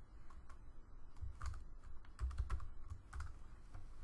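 Typing on a computer keyboard: irregular runs of key clicks, each with a dull low thud, with short pauses between the runs.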